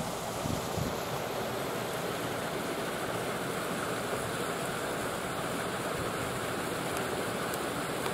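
Wind blowing across the microphone: a steady rushing hiss, with a few low buffets in the first second.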